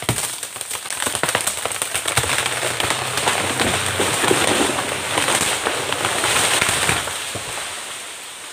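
A large tropical hardwood tree falling after being felled with a chainsaw: a sharp crack as the trunk gives way, then a long run of snapping and crackling as it breaks through branches and undergrowth, dying away after about seven seconds.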